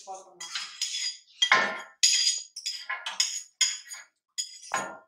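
A spoon scraping and clinking against bowls as an ingredient is scraped from a small bowl into the metal bowl of a stand mixer, in a run of short strokes about two a second.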